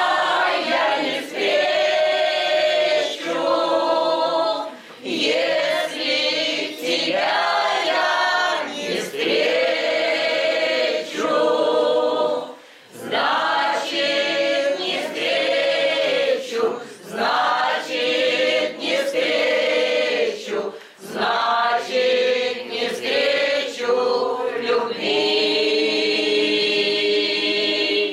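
A small amateur choir of women's and men's voices singing a song together in phrases, with short breaks for breath between them.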